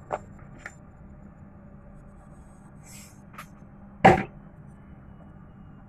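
A lump of risen bread dough turned out of a plastic bowl, landing on the countertop with one loud, short thud about four seconds in. A few light knocks of the bowl being handled come before it, over a faint steady hum.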